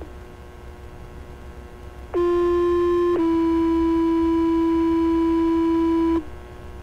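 Two-tone sequential fire-paging tone heard through a scanner radio: a steady tone for about a second, then a slightly lower steady tone for about three seconds, cutting off sharply. Before it there is a faint steady hum and hiss from the open radio channel.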